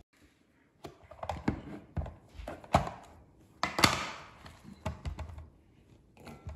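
A push-down plastic vegetable dicer knocking and thunking as a potato is pressed through its grid blade and the lid is lifted and handled. There are about eight separate knocks, the loudest just under four seconds in.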